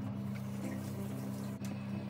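Background music of soft, sustained instrumental notes, with one brief click about one and a half seconds in.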